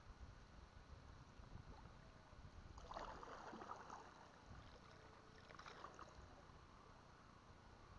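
Faint water splashing, two short sloshing swishes about three and five and a half seconds in, over a low steady rumble.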